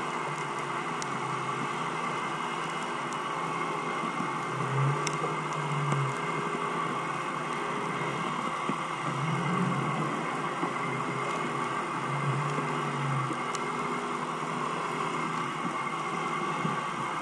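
Boat engine running overhead, heard underwater through a camera's waterproof housing: a steady hum with a few steady tones, and a lower drone that swells up every three or four seconds. A few faint clicks come through.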